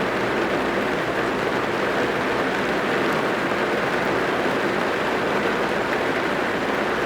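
Steady heavy rain drumming on a car's roof and windows, heard from inside the cabin as a dense, even patter.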